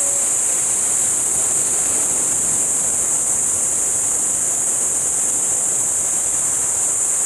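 A steady, high-pitched shrilling chorus of insects in the trees, unbroken, over a continuous rushing hiss of surf.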